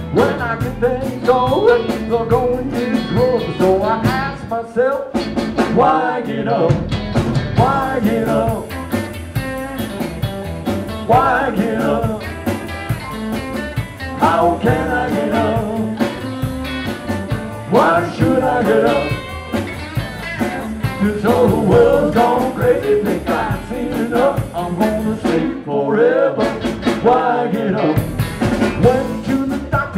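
A live band playing a rock-and-roll song: electric guitar and drums, with some singing.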